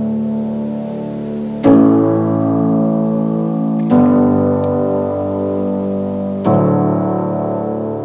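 Background music led by piano: three chords struck a couple of seconds apart, each ringing on and fading before the next.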